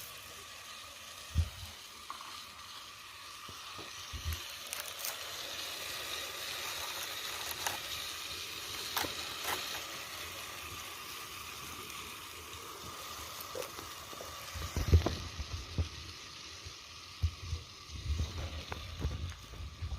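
Tagine cooking over a wood fire, a steady sizzling hiss with scattered small crackles. A few low knocks and thuds come in the last few seconds.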